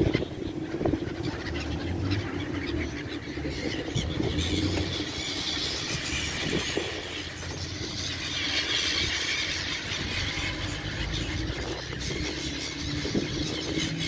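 A large flock of gulls calling constantly, many high-pitched voices overlapping, over a steady low hum.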